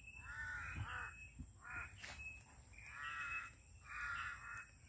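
Crows cawing, about four harsh calls spaced a second or so apart.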